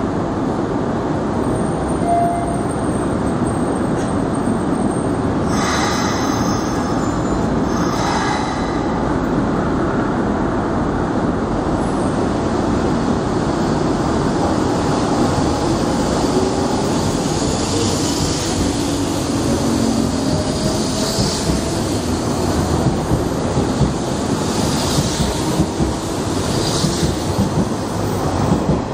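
Hanshin 8000 series six-car electric train pulling out of a station and accelerating past. Two short hisses of air come about six and eight seconds in, then a whine rising in pitch as it gathers speed, and wheels clacking over rail joints as the cars pass.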